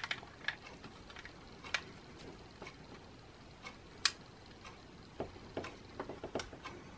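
Light, irregular clicks and taps from handling a Canon M50 mirrorless camera body with a DC-coupler dummy battery fitted, about nine in all, the sharpest about four seconds in.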